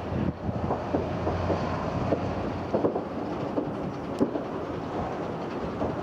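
Fireworks going off in the aftermath of an explosion: irregular sharp pops and crackles, a few a second, over a steady low rumble.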